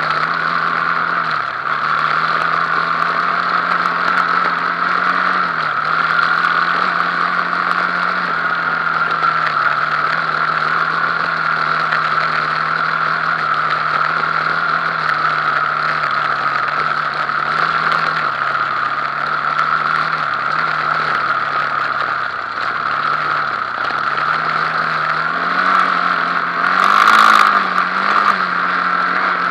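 Quad bike (ATV) engine running steadily under way, its pitch dipping and rising a little several times as the throttle eases and opens. A brief louder noise breaks in near the end.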